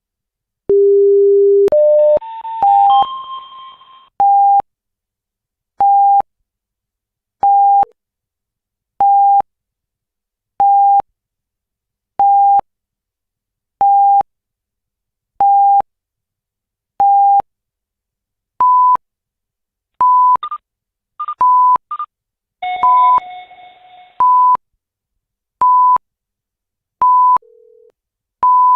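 Electronic beeps from a live seismic monitor's sound signals: a low tone, then a quick rising run of tones, then a steady single beep about every second and a half. About two-thirds of the way through the beeps step up in pitch, with brief clusters of higher chime-like tones mixed in.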